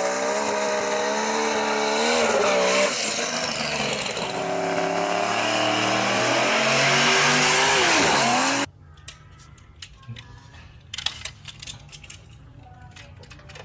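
Car sound effect of an engine revving with tyre squeal, lasting about eight and a half seconds and cutting off suddenly. After it come faint scattered clicks of plastic toys being handled.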